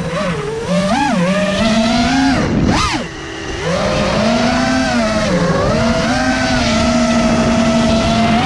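A 5-inch FPV racing quadcopter's brushless motors whining, the pitch rising and falling with the throttle. There is a quick punch up and a throttle drop about three seconds in, then a steadier, higher whine.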